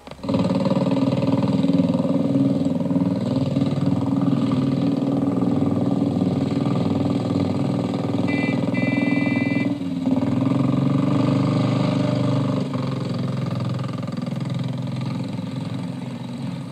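Motorcycle engine running steadily under way. It starts suddenly, changes abruptly about ten seconds in and fades a little near the end. A brief high tone sounds a little past eight seconds in.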